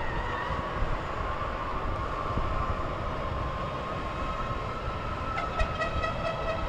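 Sustained horn tones over a low rumble; a second, richer horn tone comes in about five and a half seconds in.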